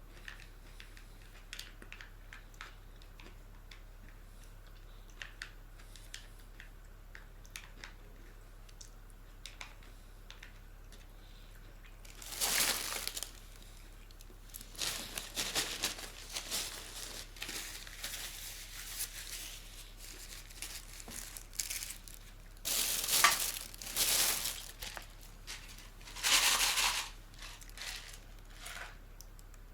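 Plastic food packaging crinkling and rustling in several bursts, the loudest about halfway through and near the end, after a stretch of scattered small clicks and taps.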